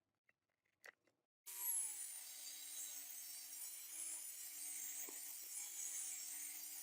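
A few faint clicks, then about a second and a half in a power tool starts abruptly and runs steadily: a low, slightly wavering hum under a strong high-pitched hiss.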